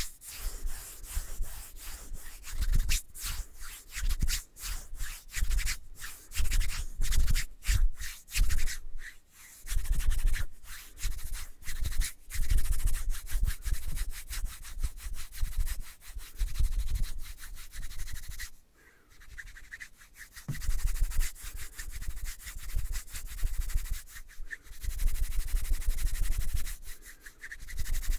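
Close-miked ASMR rubbing and brushing against the microphone: irregular scratchy strokes with low thumps, pausing briefly about two-thirds of the way through.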